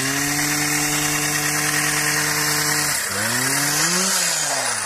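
Motor of a pole-mounted vibrating olive harvester running at high speed, its drone holding steady, dropping briefly about three seconds in, then speeding up again and winding down near the end.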